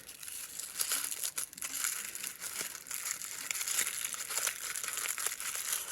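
Crinkling of a toy's blind-bag packaging wrapper being unwrapped by hand, a continuous rustle with many sharp crackles.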